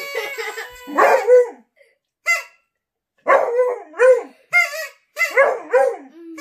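Beagle baying with a string of short 'aroo' howls, each bending up and down in pitch, answered by a man's imitation howls.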